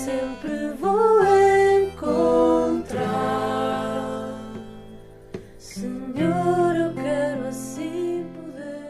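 A devotional song: a voice singing over acoustic guitar strumming.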